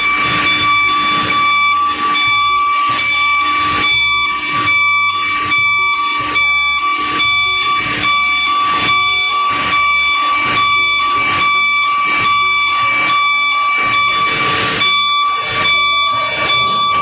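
Tipper dump truck reversing, its diesel engine running under a continuous high-pitched reversing alarm tone that pulses about twice a second. A short hiss comes about fifteen seconds in.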